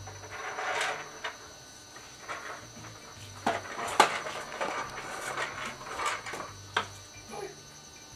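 Toddler's corn popper push toy being rolled along, its plastic balls popping and clattering against the clear dome in irregular bursts, with several sharper plastic knocks, the loudest about four seconds in.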